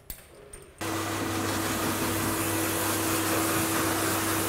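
K9000 dog wash's blow dryer running, air rushing from the hose nozzle over a dog's coat with a steady motor hum. It cuts in suddenly about a second in and holds level.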